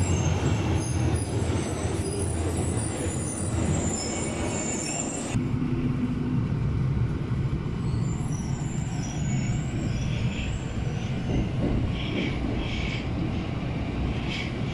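Tokyo subway train running along a platform, heard from the platform. After a sudden cut about five seconds in, the train is heard running from inside the car, a steady low rumble.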